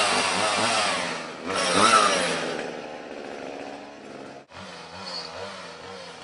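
Two-stroke chainsaw running at high revs, its pitch wavering, loudest in the first two and a half seconds. It then drops to a lower, quieter run, with a momentary gap about four and a half seconds in.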